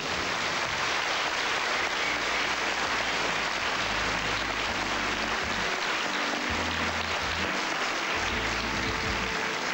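Studio audience clapping, starting all at once and holding steady, with music playing underneath.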